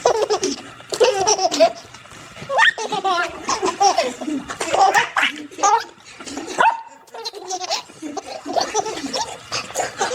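A baby laughing in repeated short bursts of giggles.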